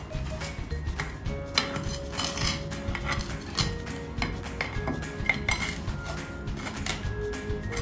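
Repeated metallic clinks and scrapes of a metal tool knocking and prying at a metal floor-drain bell trap stuck fast in its drain, over background music.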